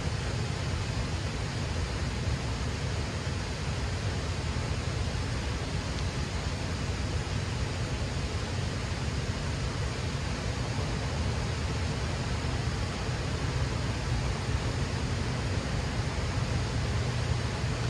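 Steady outdoor rushing noise of wind on the microphone and moving river water: a constant, flickering low rumble under an even hiss, with no separate events.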